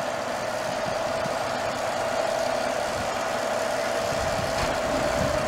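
Railway locomotive running slowly through a station: a steady mechanical hum with one constant whining tone, and a low rumble that grows about four seconds in.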